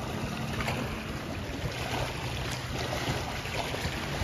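Steady outdoor noise of wind and lake water at the shore, with a faint low hum underneath.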